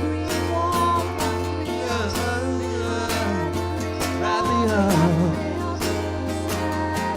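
Live band music: a guitar playing over a steady beat, with some singing.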